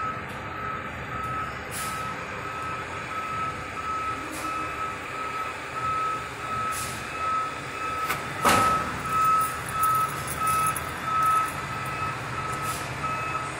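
Fire department ladder truck reversing: its backup alarm beeps steadily at one pitch over the low rumble of the diesel engine, with one short sharp noise about eight and a half seconds in.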